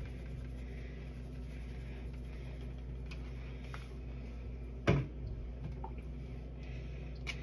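Handling of a plastic spice shaker bottle: a few light ticks and one sharp click about five seconds in, over a steady low hum.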